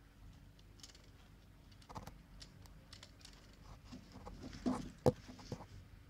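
Irregular light clicks and taps, with two louder knocks about five seconds in, over a faint steady hum.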